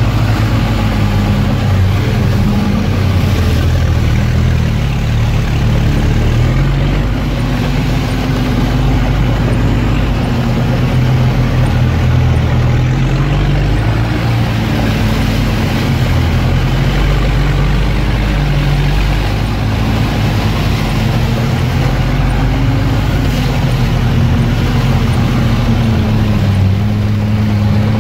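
Off-road 4x4's engine running steadily under load while driving, heard from inside the cab, its note rising and falling a little.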